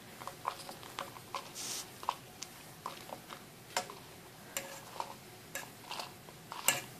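Metal fork clicking and scraping against a dry skillet as it presses a dried guajillo chile down to toast it: scattered light clicks, one or two a second, a couple of them sharper.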